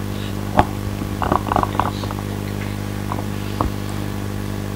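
A steady low hum with a few short, faint clicks and clatters from surgical instruments handled while a screw is placed in the C1 lateral mass.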